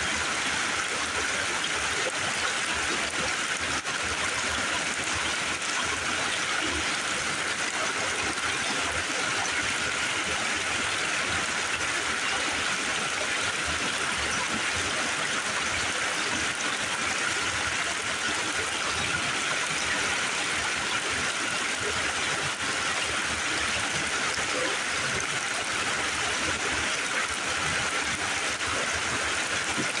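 Small rocky mountain creek rushing and splashing over stones in little cascades, a steady, even hiss of running water.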